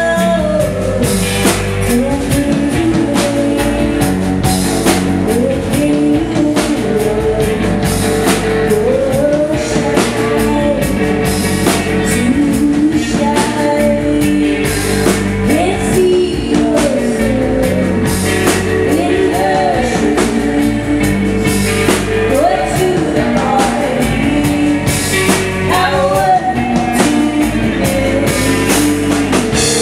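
Rock band playing live: a woman singing a wavering melody over guitar, bass and drums.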